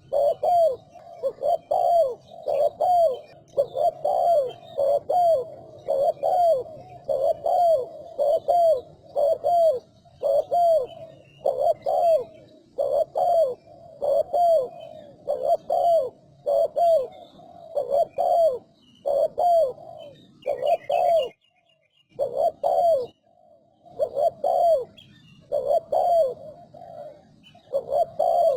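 Spotted dove cooing in a rapid, unbroken run of coo phrases, with a couple of short breaks near the end. This is the fast 'speed' cooing style, mostly of the Malaysian type.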